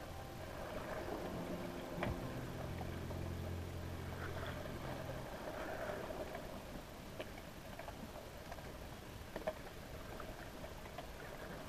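Muffled underwater sound picked up through a GoPro's waterproof housing: a steady low hum that stops about five seconds in, with scattered sharp clicks and ticks over a faint wash of water noise.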